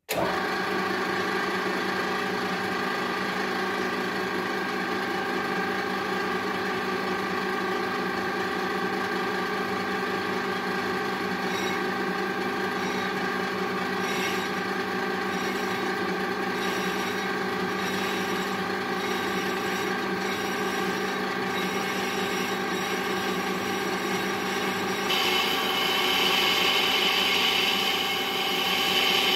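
Milling machine running with a car engine flywheel spinning on its spindle: a steady whine of motor and gears. Near the end a louder, harsher hiss joins as a lathe turning tool in the vise cuts across the flywheel face.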